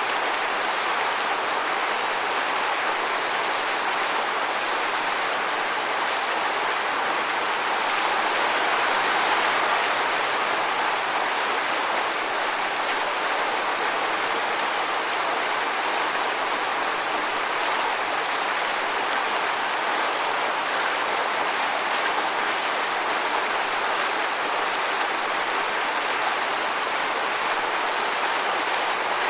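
Waterfall: falling water rushing with a steady, even noise, swelling slightly about nine seconds in.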